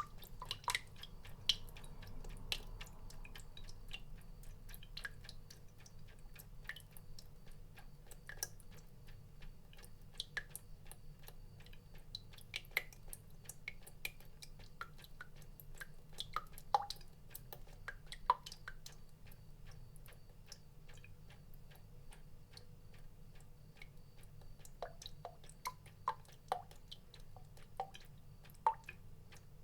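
Water drops falling irregularly, each a short plink, some with a brief ringing pitch, over a faint steady low hum.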